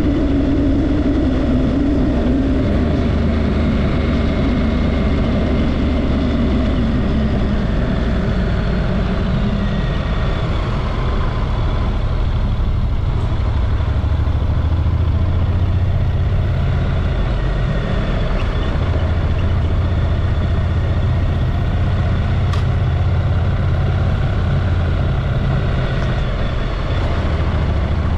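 Motorcycle engine running under way, with wind and road noise. The engine note falls over the first several seconds as the bike slows, then holds steady.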